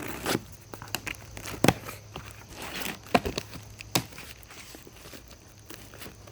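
Handling sounds of a parts box and its packaging: scattered knocks and clicks with light rustling and crinkling.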